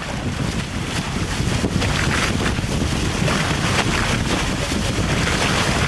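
Wind buffeting the microphone over the hiss and rush of water off the hulls of a Hobie Cat 18 catamaran sailing fast: a heavy, steady rumble with repeated hissing surges of spray.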